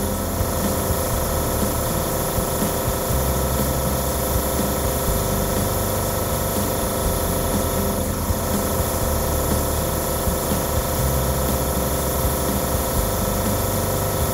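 Badger airbrush compressor running steadily with a pulsing hum, under the hiss of a dual-action airbrush spraying paint.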